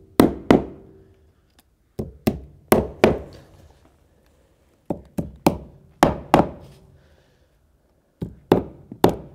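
Hammer tapping Cortex plugs into the screw holes of PVC composite deck boards: runs of several sharp taps, about three a second, separated by pauses of a second or two.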